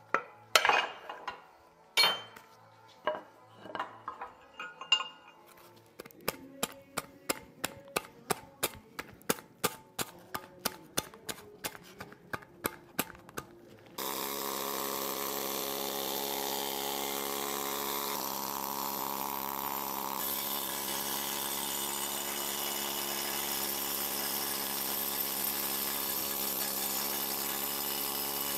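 Old grease being scraped out of a cast-iron flywheel with a wooden stick: scattered scrapes and knocks, then a run of quick, even scraping strokes. About halfway through, an air-powered wire brush starts abruptly and runs steadily, scouring grease and paint off the power hammer's cast-iron parts.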